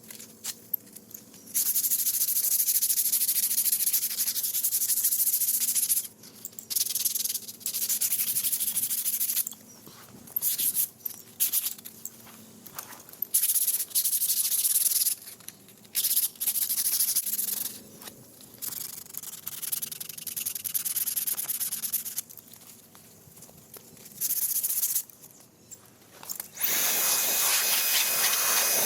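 Sanding the surface of a garage door, in passes of a few seconds each with short breaks between them; near the end the sound becomes fuller and steadier.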